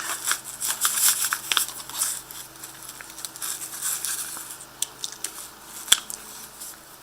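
Handling noise of an OTF knife being slid into its sheath: rustling and scraping with a flurry of small clicks, busiest in the first two seconds, then scattered clicks and one sharp click about six seconds in.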